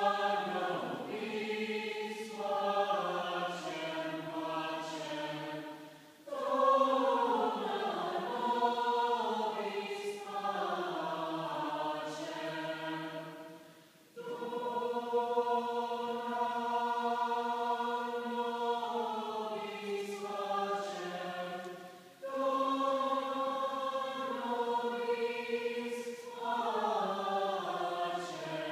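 Mixed a cappella vocal group singing in several parts without instruments: held chords in phrases of about eight seconds, each fading out into a short break before the next begins.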